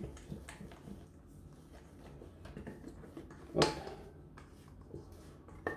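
Spatula scraping beaten egg whites out of a stainless steel mixing bowl: soft scrapes and small clicks, with a louder knock about three and a half seconds in and another near the end.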